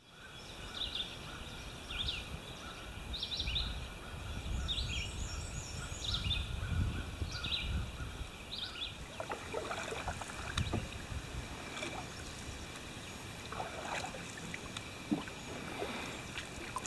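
Birds calling, a short chirp repeated about once a second, over a low rumble. About halfway through, the splashes and light knocks of canoe paddling take over.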